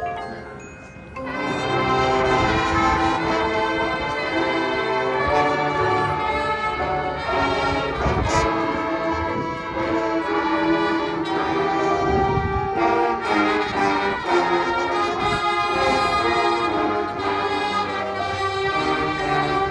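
High school marching band playing its field show: after a quiet moment the brass enter loudly about a second in and hold full, sustained chords, with percussion hits here and there.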